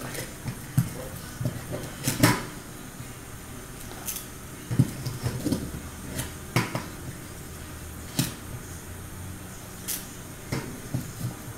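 Metal spoon scraping and knocking against a stainless steel bowl of freshly frozen liquid-nitrogen ice cream, in irregular knocks and scrapes a second or two apart.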